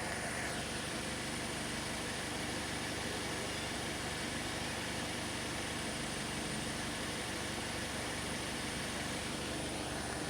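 Toyota Corolla GLi 1.8's four-cylinder engine running steadily with a noise from its CVT transmission, a fault the owner is reporting on a nearly new car with only 350 km.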